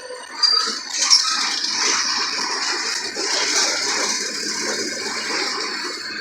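Mercedes-Benz OF-1721 bus running, heard from on board: a steady rushing noise with light rattles, rising suddenly about half a second in.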